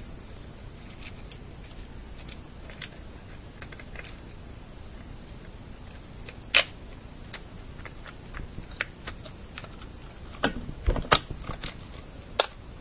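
Light plastic clicks and knocks of a GameCube controller's shell and parts being handled and pressed together during reassembly. Sparse at first, with one sharp click about halfway through and a cluster of louder knocks near the end.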